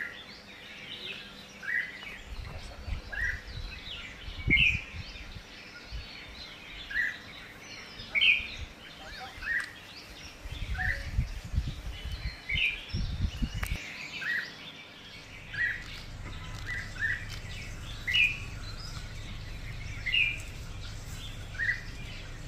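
A bird calling repeatedly: short chirps every second or so, alternating between a higher and a lower note. Low rumbling noise comes and goes beneath it.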